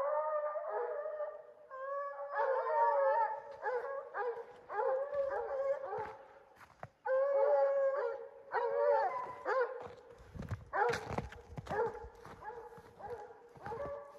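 Several redbone coonhounds baying and bawling on a mountain lion's trail, long wavering howls overlapping at different pitches. From about ten seconds in, low thumps join the baying.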